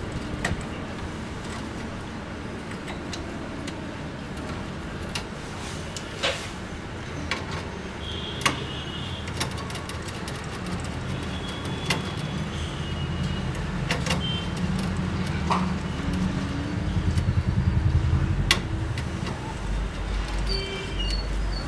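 Scattered sharp clicks and taps of a screwdriver and small metal parts as screws are taken out of a laser printer's casing. Under them runs a steady background rumble of road traffic, which grows heavier in the last third as a vehicle passes.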